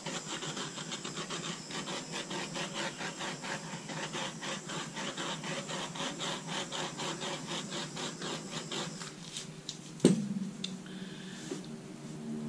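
A paper towel is rubbed back and forth along the edge of a wet canvas in quick, even strokes. It fades out near the end, and then a single sharp knock is heard.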